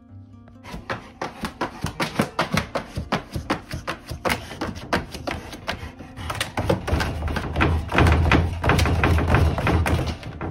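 A golden retriever in labour digging at the floor of a plastic dog crate, her claws scratching and tapping in a fast run of about three to four strokes a second, with heavier thuds near the end. This is the nesting digging of a dog about to whelp.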